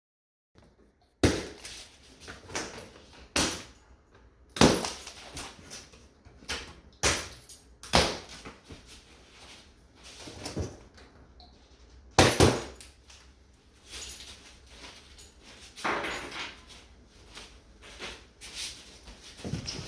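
Irregular knocks and bangs from handling treadmill parts and packaging, about a dozen in all, the loudest a little over a second in and a double bang about twelve seconds in.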